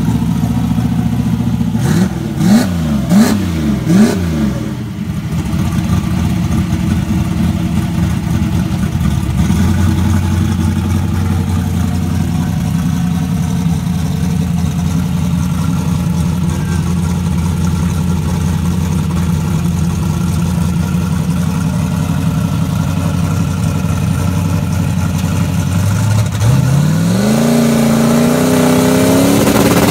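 Oldsmobile Cutlass 442 drag car's engine idling at the starting line, blipped three quick times a couple of seconds in. Near the end the revs climb and are held high, ready for launch.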